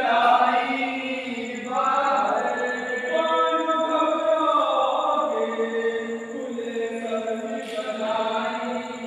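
Several voices chanting a noha, a Shia mourning lament, together, with long held notes that step up and down in pitch.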